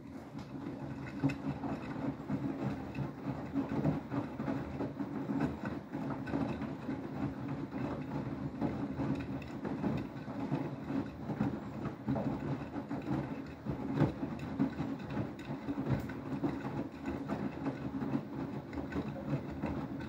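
Beko WTK104121W front-loading washing machine on its main wash: the motor hums steadily as the drum turns, tumbling wet towels through sudsy water with an uneven sloshing rumble.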